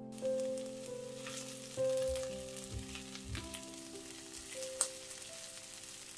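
Food sizzling in hot oil in a frying pan, a steady crackling hiss with a few sharp clicks, over soft background music.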